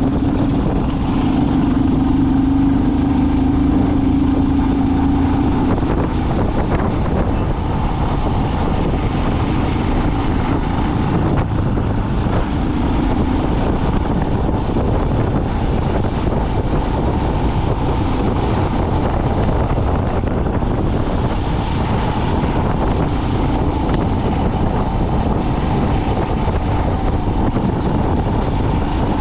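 A vehicle driving: steady engine and road rumble with wind buffeting the microphone. A humming tone holds for the first few seconds, then fades into the rumble.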